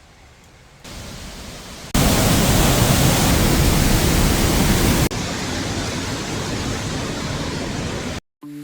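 Waterfall: steady rushing water, heard as a row of clips joined by abrupt cuts. It starts faint, jumps much louder about two seconds in, then drops to a moderate level about five seconds in, with a short dropout near the end.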